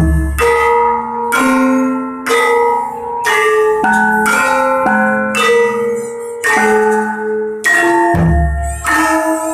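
Javanese Sekaten gamelan playing at a slow, steady pulse: bronze kettle gongs (bonang) and metallophones struck about once a second, each stroke a ringing cluster of tones. A deep low stroke lands at the start and again about eight seconds in.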